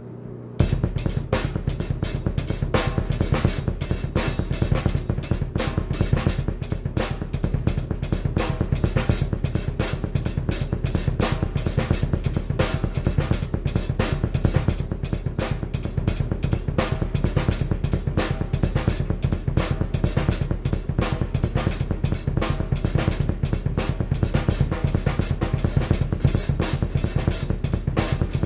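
Drum kit played with a double bass drum pedal: rapid, steady kick-drum strokes with snare and cymbals over them, starting about half a second in.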